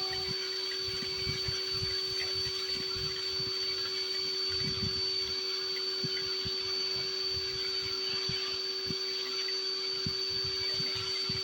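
Vacuum cleaner motor running steadily as a blower, pushing snow away, with a constant high whine over a rushing hiss. Irregular low buffeting of air comes and goes throughout.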